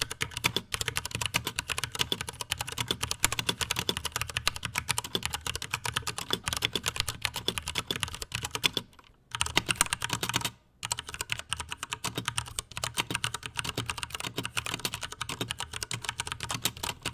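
Fast continuous typing on a 60% Poker mechanical keyboard with Cherry MX Brown switches, a dense run of key clicks. It stops briefly twice, about nine and ten and a half seconds in.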